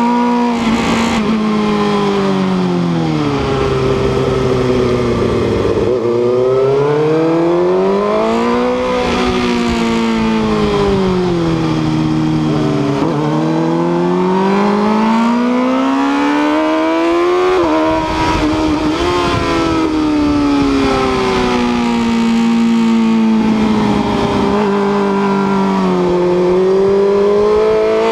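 Sport motorcycle engine heard from on board, held in second gear, its revs rising and falling several times as the rider accelerates out of and slows into tight corners, with wind rush over the microphone.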